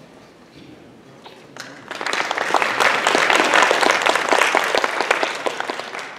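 Audience applauding: the clapping breaks out about two seconds in, swells, and dies away near the end.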